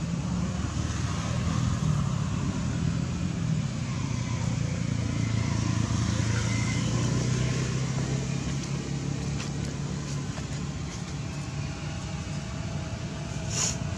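Road traffic passing: a steady low engine hum from motor scooters and cars going by, swelling and shifting in pitch in the middle as one passes close. A single brief, sharp high sound comes near the end.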